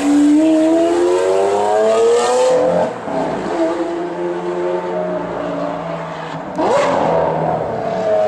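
Lamborghini Aventador's V12 with a Capristo exhaust accelerating hard. Its pitch climbs for nearly three seconds, drops suddenly at a gear change, then pulls on steadier. Near the end a quick rise in revs comes with a sharp crack.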